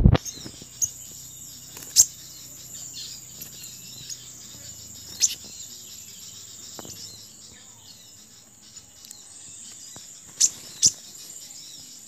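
Steady high-pitched insect drone, crickets, with a loud sharp click at the very start and a few short sharp chirps scattered through, two of them close together near the end.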